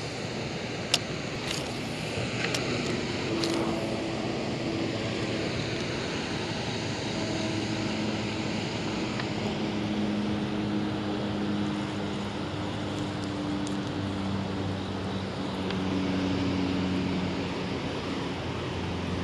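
Steady rush of fast water below a dam's running generators, with wind on the microphone. A few sharp clicks come in the first few seconds, and a low steady hum that shifts in pitch runs through most of the rest.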